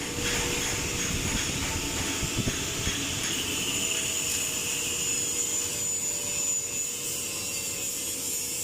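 Steady hissing workshop machine noise, with a faint steady hum and a faint high whine under it.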